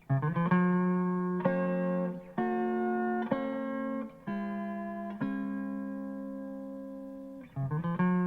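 Instrumental jazz-funk played back from a cassette tape: a guitar-led melodic line of held notes that change about once a second, coming in right after a near-silent gap.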